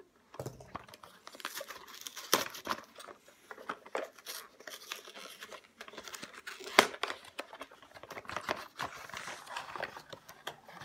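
A small cardboard mailing box and its paper wrapping being opened by hand: rustling, tearing and crinkling, with scattered sharp snaps, the loudest about seven seconds in.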